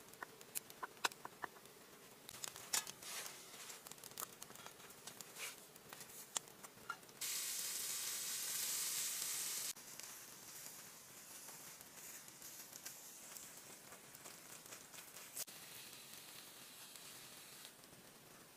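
A knife cuts through a crusty loaf on a wooden board with a run of sharp crackling clicks. Then food sizzles over a charcoal grill: loud for about two and a half seconds, then a softer, steady sizzle.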